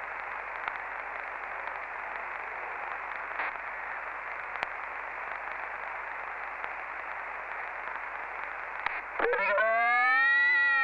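CB radio receiver hiss: steady band-limited static from an open channel on the 27 MHz band, heard through a Sommerkamp transceiver. About nine seconds in, a click marks a station keying up, followed by a loud held pitched sound with strong overtones that slides up, holds and drops off as the carrier cuts out.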